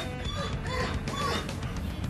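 Quiet background music with a held note.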